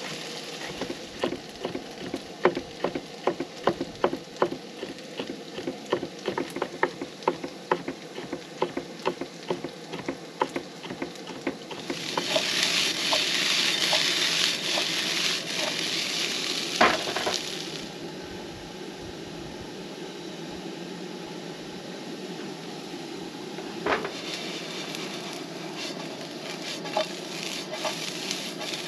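Knife chopping on a wooden cutting board, about two cuts a second, for the first ten seconds or so. Then food fries in a pan on a propane camp stove: loud sizzling for about five seconds, settling into a quieter steady frying sizzle with a few clicks from the pan.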